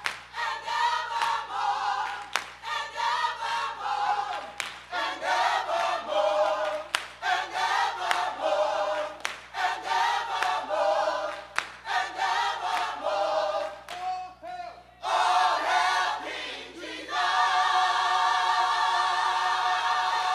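Gospel choir singing a rhythmic passage over a steady percussive beat, ending on a long held chord.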